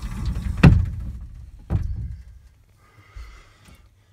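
Two dull thumps about a second apart, the first the louder, followed by a short faint hiss.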